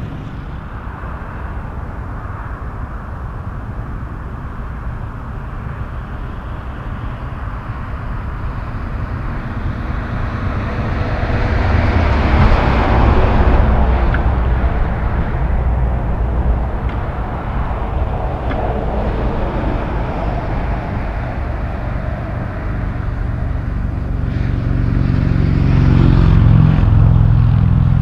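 Road traffic passing on a highway: a steady low rumble that swells as a vehicle goes by about halfway through, and again near the end with a deeper engine drone.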